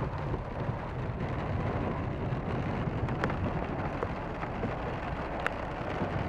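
Heavy rain falling on a car's roof and windshield, heard from inside the cabin, over the steady low rumble of the car driving on a wet dirt road.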